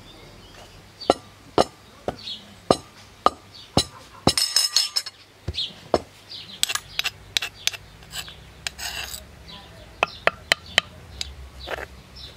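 A metal spoon knocking and scraping inside a wooden bowl as ground, crumbly food is worked and scraped out. The sharp knocks come roughly twice a second, with a rasping scrape partway through.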